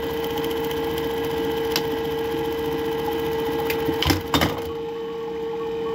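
Juki 761 industrial buttonhole sewing machine running a buttonhole cycle: needle stitching over a steady motor hum, with two loud clacks about four seconds in.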